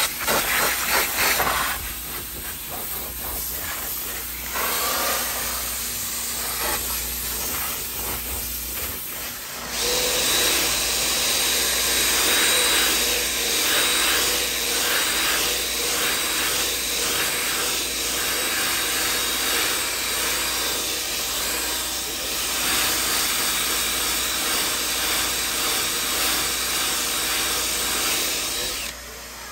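Upholstery extraction wand hissing as it sprays and sucks along the sofa fabric. About ten seconds in, a cordless drill with a brush pad starts whirring as it scrubs the cushion fabric, running steadily until it stops just before the end.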